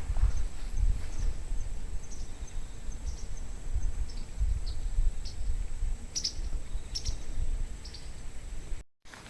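Outdoor background noise: a steady low rumble with faint, short high-pitched chirps scattered through it, cut off abruptly near the end.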